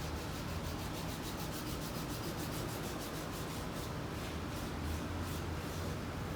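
Rubbing by hand on a piece of wood in quick back-and-forth strokes, about six a second. After about four seconds the strokes thin out to a few spaced ones.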